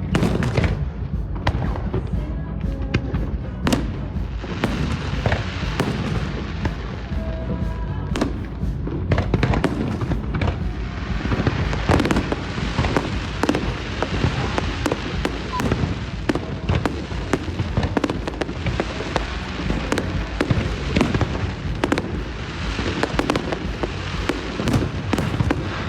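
Fireworks display: a dense, unbroken run of shell bursts and bangs. A thick crackle joins them from about four seconds in and swells again near the end.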